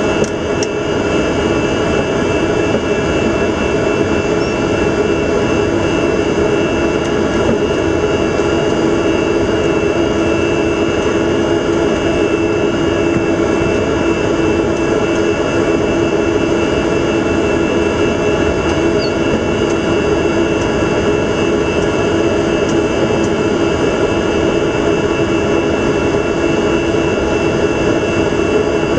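Steady cockpit noise of an Antonov An-124 Ruslan taxiing: its Progress D-18T turbofan engines running at low power, under a steady low hum and a high whine.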